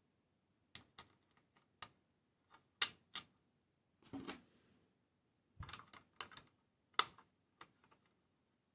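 Small parts and tools of a diecast model kit being handled during assembly: irregular sharp clicks and taps, with two louder clacks about three and seven seconds in.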